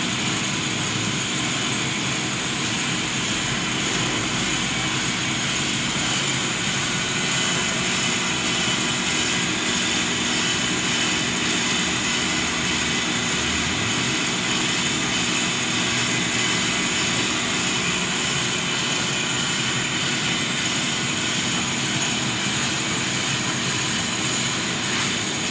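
FMC B-501 disc and drum brake lathe running steadily with its drive and transmission engaged. A brake rotor is turning on the arbor while the twin cutting bits feed across its faces to true them. A steady mechanical whine and hum, with a faint regular pulse in the hiss.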